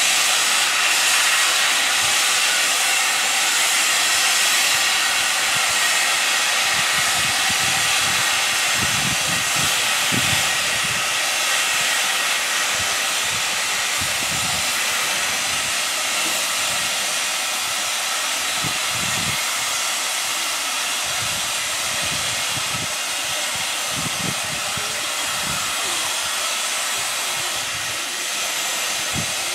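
Steady hiss of steam escaping from a stationary WD Austerity 2-10-0 steam locomotive, from low at the front of the engine, easing off slightly as it goes.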